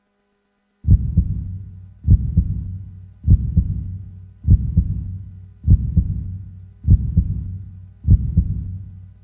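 Heartbeat sound effect: slow, even lub-dub double thumps about every 1.2 seconds over a low hum, starting about a second in.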